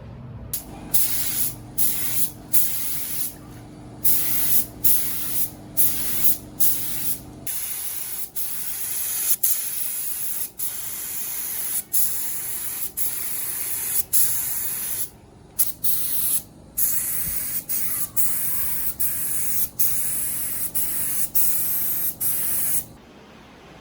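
Spray gun hissing in bursts of about a second, broken by many short gaps as the trigger is released and pulled again, stopping near the end. A low steady hum accompanies it for the first seven seconds or so, then stops.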